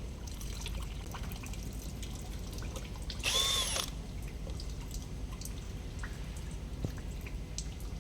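A power tool gives one brief whir, about half a second long, rising and falling in pitch, about three seconds in, over a steady low rumble and scattered small clicks of work on the car.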